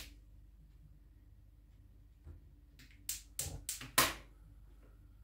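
Gas stove burner being lit: a quick run of about five sharp clicks a few seconds in, the last one loudest.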